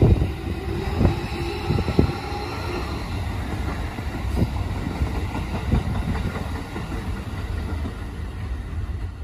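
Red-and-white electric commuter train running past, its wheels clacking over rail joints about once a second at first, with a steady rumble under the clacks.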